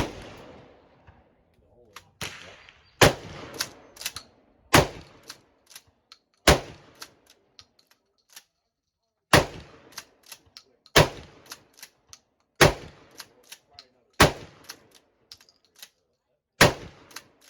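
Smith & Wesson 916A 12-gauge pump-action shotgun fired repeatedly: about nine loud shots, roughly one and a half to three seconds apart, each with a short echo. Lighter clacks come between the shots.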